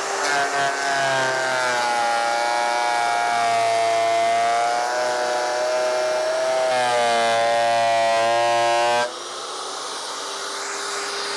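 Benchtop thickness planer taking a heavy cut on a wide glued-up pine board: a loud motor whine whose pitch sags and recovers as the cutterhead loads up. About nine seconds in the board clears the cutter, the whine stops suddenly, and the planer runs on, quieter, without load.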